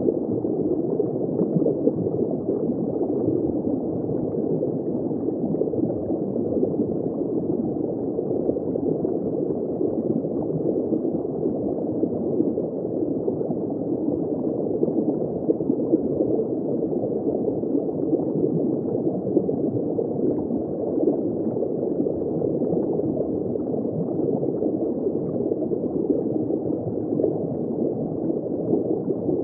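Steady, muffled underwater ambience: a dense, even crackling hiss of water noise with no high end, as heard through an underwater camera housing.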